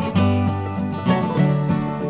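Instrumental break of a country-style song played by a string band: plucked acoustic strings over a bass line, with no singing.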